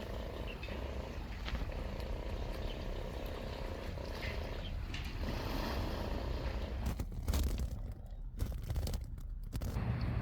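Wind and sea surf at the shore: a steady rumbling hiss, with a few faint short chirps scattered through it.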